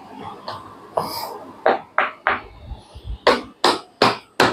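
Fabric straps and packaging of an action-camera chest mount being handled: a run of short, sharp rasps, three and then four, a few tenths of a second apart.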